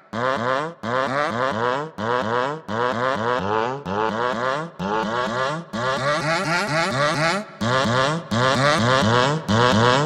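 Big-room house track build-up: a quickly repeating rising synth sweep over a low bass note, cut into chunks by abrupt breaks roughly once a second.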